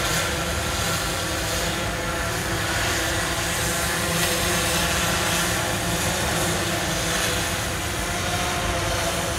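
Multirotor drone hovering, its propellers giving a steady hum with several held tones.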